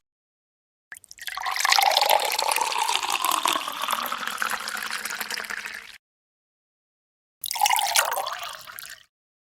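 Water pouring or running for about five seconds, then stopping. After a short gap a second, shorter splash of pouring water of about a second and a half fades away.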